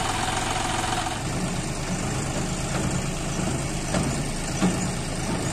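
John Deere tractor's diesel engine running steadily at low revs. Two short knocks come near the end, the second one louder.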